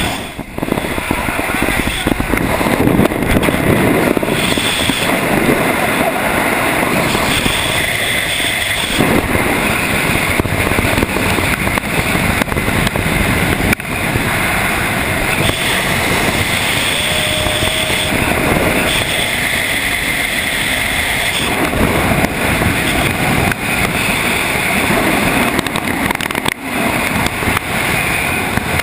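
Freefall wind in a tandem skydive, rushing and buffeting over the camera microphone as a loud, steady roar.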